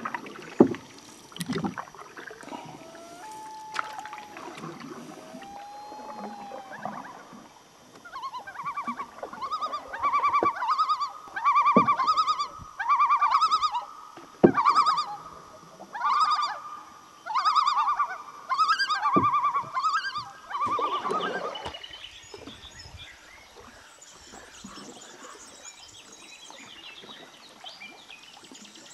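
A trilling animal call repeated about a dozen times, one short pulsed trill every second or so, starting about eight seconds in and stopping a little after twenty seconds. A few sharp knocks fall among the calls.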